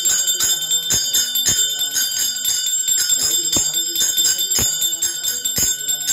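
Hand bell ringing continuously during arati, its high ringing tones steady, over devotional singing with a sharp beat about twice a second.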